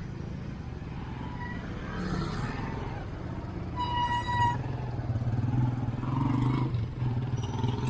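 Road traffic with vehicle engines running close by. A short horn beep sounds about four seconds in, and a nearby engine runs steadily louder from then on.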